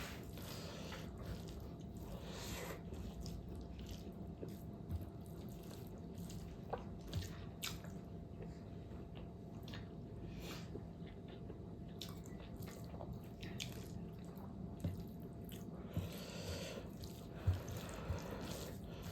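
Faint chewing of fatty pork, with small wet mouth clicks and squishes scattered over a steady low hum.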